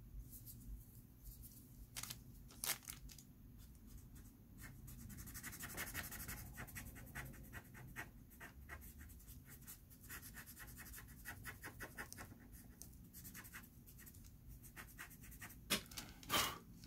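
Paper blending stump rubbing soft pastel into drawing paper in quick, closely spaced strokes, a faint dry scratching. There are a couple of light clicks about two seconds in.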